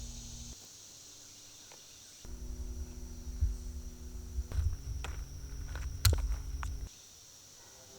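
Summer woodland ambience: insects drone steadily at a high pitch over a low rumble, with a few sharp snaps or footsteps. The low rumble cuts out sharply twice.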